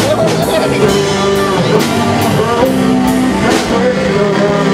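Loud background music: a rock-style song with guitar, singing and a steady beat of drum and cymbal hits.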